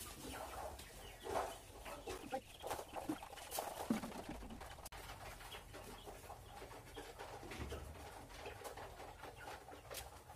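Domestic hens clucking on and off, with a few sharp clicks or knocks in between.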